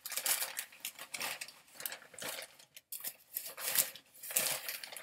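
A shipping package being torn open, its packing paper rustling and crinkling in irregular bursts.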